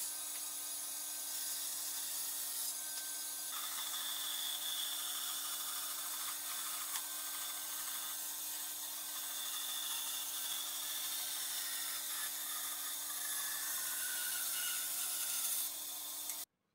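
Bandsaw running with a steady motor hum while its blade rips lengthwise through a wooden board, a dense high hiss of cutting; the sound cuts off suddenly near the end.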